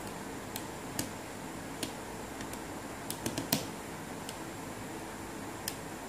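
Plastic LEGO pieces of a puzzle box clicking and tapping as they are handled and slid, in scattered single clicks with a quick run of four about three seconds in, the last of these the loudest, over a steady hiss.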